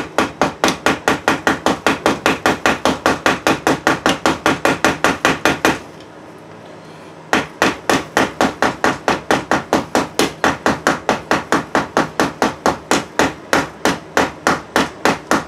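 A hammer taps rapidly and evenly, about five blows a second, at the modular connector panel of a Corsair HX1200 power supply. The tapping stops for about a second some six seconds in, then resumes at the same pace.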